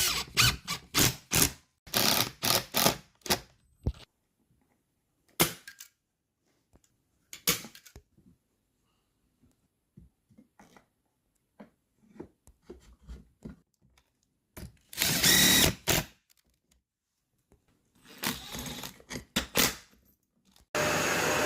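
Power drill/driver run in short bursts, as when driving screws into a chair frame, with faint clicks and knocks between the bursts. A steady loud rushing noise starts near the end.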